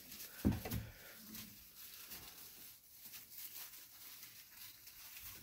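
Faint rustling and scratching of puppies moving about in wood-shaving bedding, with scattered small ticks. There is a brief low bump about half a second in.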